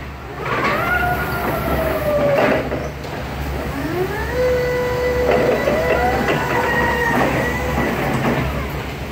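Two long, high squealing tones, each sliding up at its start and then holding, the second one longer, over a steady low hum.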